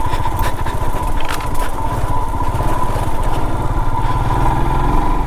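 Royal Enfield Himalayan motorcycle's single-cylinder engine running at low speed with a steady exhaust thump, ridden over a rough track.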